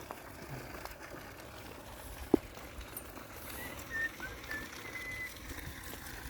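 A single sharp click a little over two seconds in, then a string of short, high whistled notes over steady outdoor background noise.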